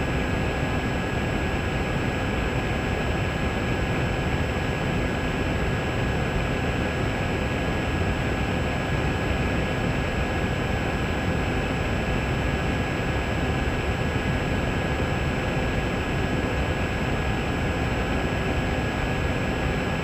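Camera drone in flight: its motors and propellers running steadily, a constant hum with a few high, unchanging whining tones over a rushing noise.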